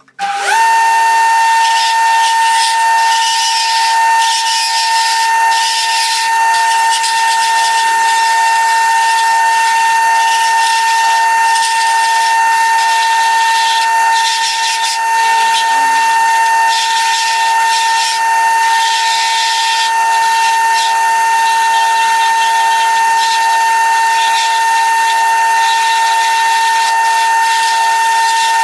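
Wood lathe running at speed with a steady high-pitched whine, over a rough hiss that swells and fades as the spinning wooden handle is worked.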